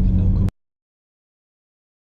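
A car's engine and road rumble heard from inside the cabin, steady and low, which cut off abruptly about half a second in, followed by total silence as the recording ends.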